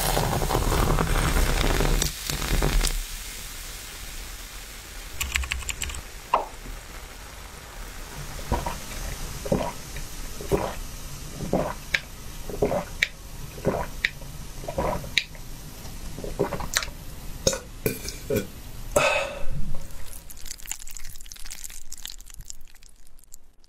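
Sparkling lemon tea poured over an ice cube into a glass jug, splashing and fizzing for about the first three seconds. Then it is drunk through a straw, with close-up gulps about one a second for some thirteen seconds.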